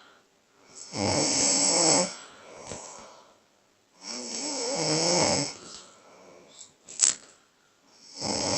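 A person snoring, three long snores each lasting about a second and recurring roughly every three and a half seconds, the third starting near the end. A sharp click about seven seconds in.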